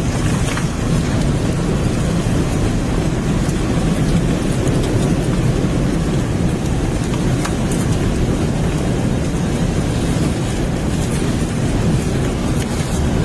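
Tornado winds and rain battering an armored storm-intercept vehicle, heard from inside: a loud, steady rumble with scattered clicks of rain and debris striking the body.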